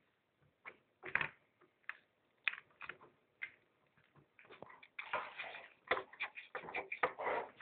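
Small metal and plastic mower wheel-hub parts being worked with pliers and fingers: scattered clicks and scrapes, then denser scraping and grinding of grit over the last few seconds.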